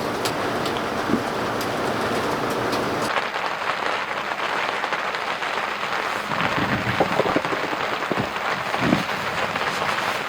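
Heavy rain falling on a tent: a dense, steady hiss with scattered drop hits. About three seconds in the sound turns duller, losing its highest hiss.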